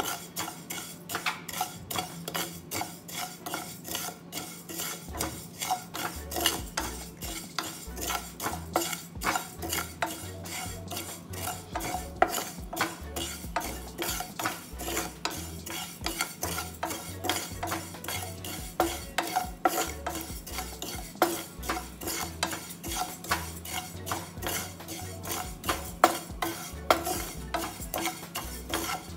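A wooden spatula stirring and scraping dry cumin seeds around a hot nonstick frying pan in quick, regular strokes, the seeds rattling against the pan: cumin being dry-roasted on low heat.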